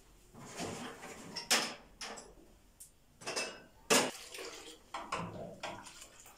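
Kitchenware being handled: dishes and utensils knocking and scraping, with two sharp clinks about a second and a half in and about four seconds in.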